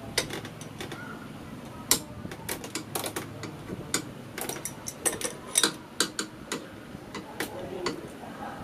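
Irregular sharp metallic clicks and clinks of a hand wrench on a Honda Airblade 150 scooter engine, as the new spark plug is given its final tightening.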